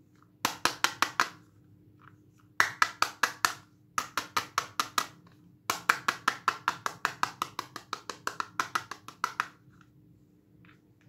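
Rapid taps on a hard plastic toy guitar, in four quick runs of about seven taps a second, each run fading; the longest run lasts nearly four seconds near the end.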